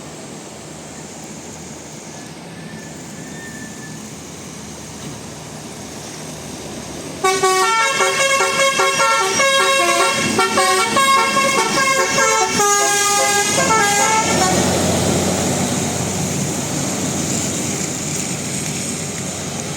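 Bus telolet horn playing a quick multi-note tune, starting suddenly about seven seconds in and lasting about seven seconds. Then the bus's running noise slowly fades as it passes.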